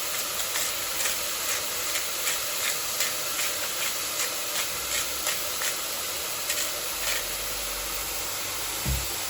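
Mushrooms, onions and garlic sizzling in olive oil in a frying pan: a steady hiss with many small crackling pops. A low thump near the end.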